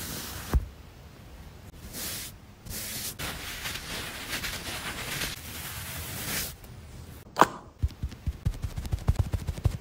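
A pad rubbing and wiping around a dog's ear fur, in several passes. Near the end there is a sharp click, then a quick run of soft low knocks.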